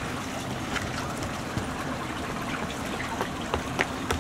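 Steady rushing outdoor noise of an open-air pool deck, with scattered light taps and slaps that come more often near the end.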